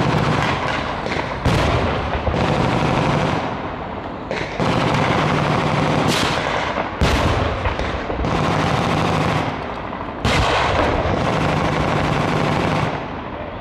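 Machine guns firing blanks in long automatic bursts during a mock battle: a series of bursts lasting one to two seconds each, with short breaks between them.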